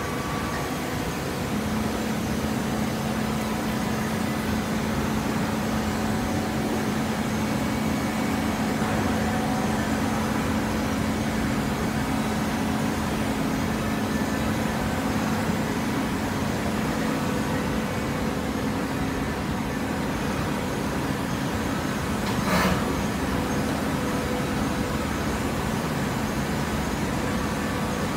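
Automatic horizontal baler running as it compresses shredded paper: a steady machine hum with a low steady tone that fades out about three-quarters of the way through. Later on there is a single sharp knock.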